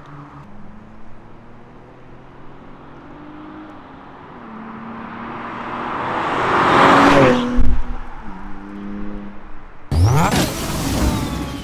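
A Nissan Z's twin-turbo V6 with an AWE cat-back exhaust accelerates hard toward the microphone, its note climbing until the car passes loudly about seven seconds in, then drops in pitch as it pulls away. A whooshing sound effect with rising sweeps comes in suddenly near the end.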